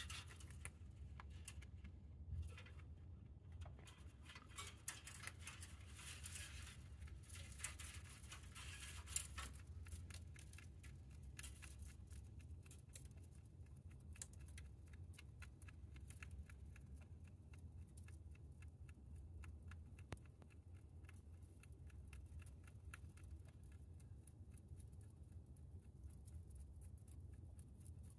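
A rabbit chewing hay: a fast, faint, crisp crunching that goes on without a break, busiest for the first ten seconds or so and then a little softer.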